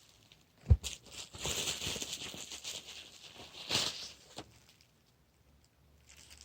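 Packaging being handled and opened, rustling and crinkling in short spells, with one sharp thump about a second in. It goes quiet for the last two seconds.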